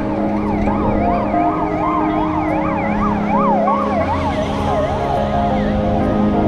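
A siren-like wailing tone sweeping up and down about three times a second over background music with held chords.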